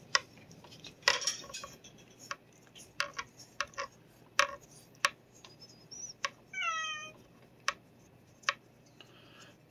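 Light, irregular clicking and scratching of a plastic brush on a stick being worked through a cat's fur, with one short meow from the cat about two-thirds of the way through.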